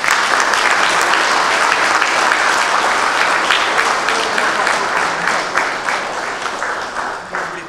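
Audience applauding: many hands clapping in a dense wash that dies away near the end.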